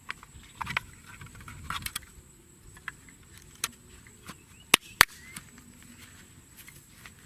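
Scattered sharp clicks and knocks, with two loud ones in quick succession about five seconds in, over a faint steady high whine.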